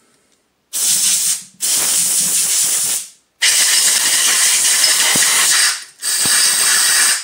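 Compressed-air blow gun blowing into a freshly tapped hole in the end of an aluminum extrusion to clear out cutting chips: four loud hissing blasts separated by short breaks, the first starting just under a second in and the third the longest.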